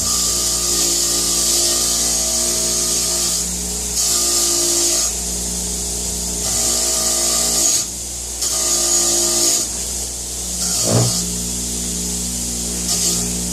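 Power-driven wire wheel running with a steady motor hum, scrubbing a steel part in repeated passes of scratchy hiss separated by short pauses. A knock comes about eleven seconds in.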